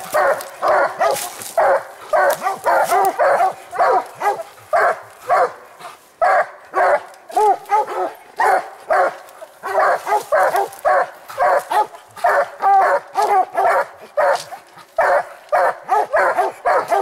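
Several Walker coonhounds barking treed at the base of a tree, their barks overlapping in a steady run of about two or three a second, with a short lull about six seconds in. This is tree barking, the hounds' signal that they have a raccoon up the tree.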